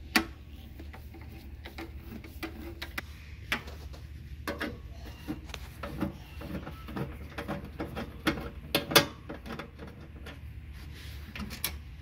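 Nut driver turning out hex-head screws from a refrigerator's sheet-metal back panel: irregular metal clicks and ticks from the driver and screws, over a steady low hum.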